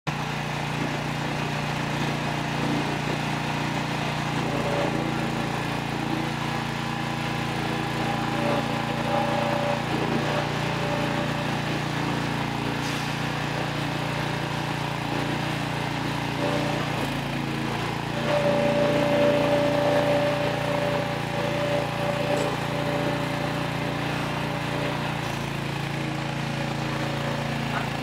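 Engine of a compact stand-on wheeled skid steer loader running steadily while it drives and works its bucket, with a higher whine coming in at times, loudest about two-thirds of the way through.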